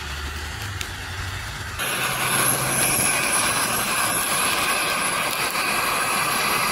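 Gas canister stove burner running hard under a stainless steel pot of water at a rolling boil. A steady rushing hiss with bubbling comes in abruptly about two seconds in, after a low rumble.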